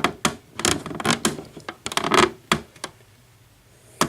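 Clicks and scraping from a large plastic action figure being handled as its head is turned side to side, in a quick irregular run. A single click comes near the end.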